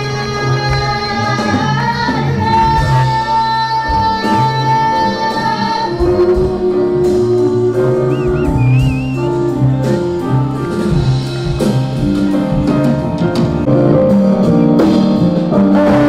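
Live concert music: a band playing with singing, long held notes over a steady low bass line.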